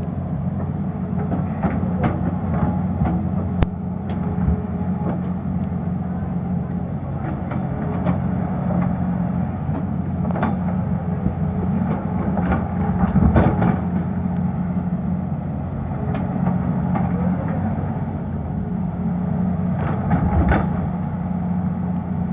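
Tata Hitachi excavator's diesel engine running steadily, with scattered knocks every few seconds.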